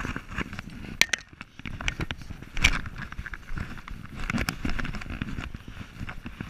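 Footsteps crunching and crackling over dry ground, with a couple of sharper snaps.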